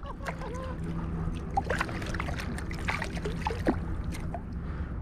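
Small splashes and drips of seawater as a small hooked fish is handled and lifted out of the surface, scattered short sharp splashes over a steady low rush of wind and waves.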